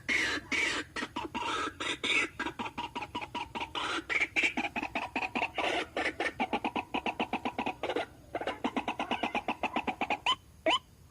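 White-breasted waterhen calling: a long series of harsh, chattering notes that run into fast repeated pulses of several a second. Near the end these give way to sharp, upward-sweeping notes.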